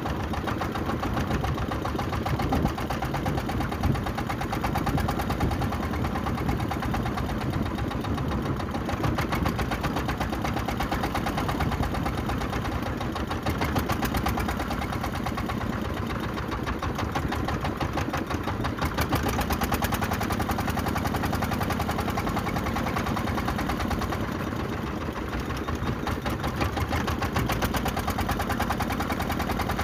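Small wooden fishing boat's inboard engine running steadily with a rapid, even knocking beat, over a wash of wind and sea noise.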